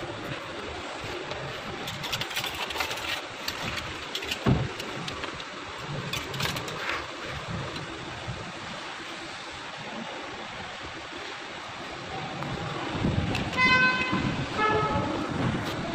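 Steady background noise with scattered scrapes and knocks, then about three-quarters of the way through two short horn toots, the second slightly lower in pitch.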